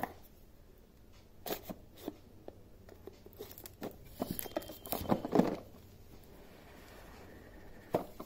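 Cardboard phone box being opened by hand: scattered taps and scrapes, with a denser run of tearing and rustling around the middle as a sticker seal is pulled off and the inner box slides out of its cardboard sleeve.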